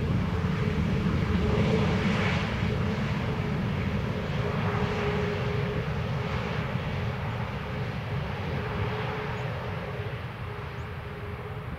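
Jet engine noise from an Airbus A321neo airliner coming in to land: a steady rumble with a faint held tone, slowly growing quieter over the last few seconds.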